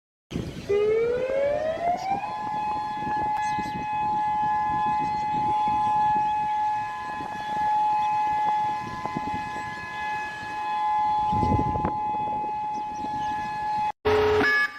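Civil defense siren winding up from a low pitch to a steady two-note wail, holding it for about twelve seconds, then cutting off just before the end. A low rumbling background noise runs under it.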